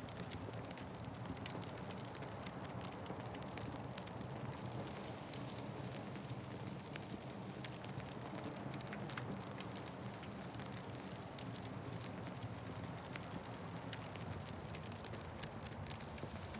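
Wood fire crackling: a steady low rush of flames with many small, sharp pops and snaps.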